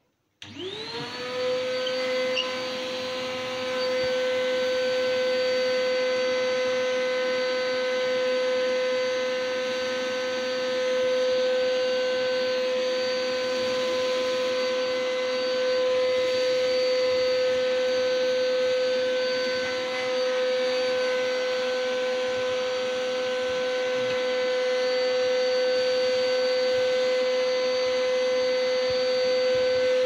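Industrial vacuum cleaner switched on about half a second in, its motor spinning up with a quickly rising whine, then running steadily with a strong high whine and rushing air through its hose.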